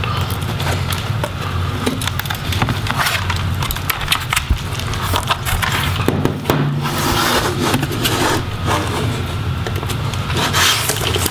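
A laptop's plastic case and hinges being handled: irregular scraping and rubbing with many small clicks, as the hinge screws are taken out and the display is swung open.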